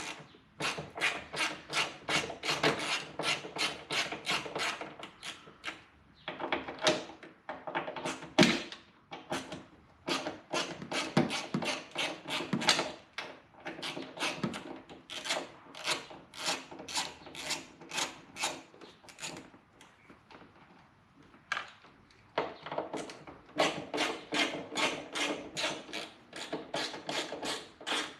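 Hand ratchet with an 8 mm socket clicking in quick back-and-forth strokes, about four clicks a second, as it undoes the door mirror's mounting bolts. The ratchet works in several runs with short pauses, and there is one louder knock about a third of the way in.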